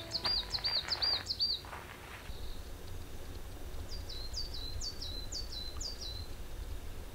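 A small songbird singing two runs of quick, repeated high notes: one right at the start, and a run of falling notes about four seconds in. Footsteps sound on the trail during the first couple of seconds.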